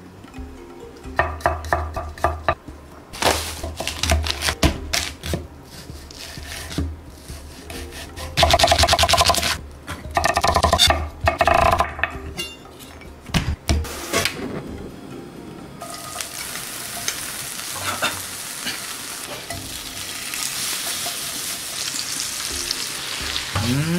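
A metal spoon stirring and scraping a thick sauce in a small ceramic ramekin, in clicks and ringing scrapes against the bowl. About sixteen seconds in, a frying pan starts a steady sizzle as sliced duck, chillies and spring onion fry.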